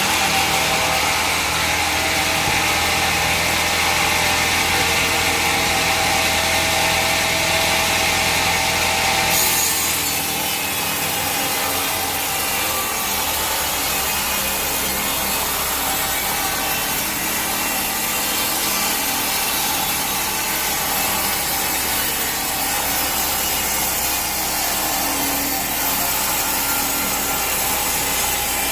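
Power saw cutting steadily through a log, a continuous rasping noise; about nine seconds in the sound changes, losing its high hiss and its steady whine.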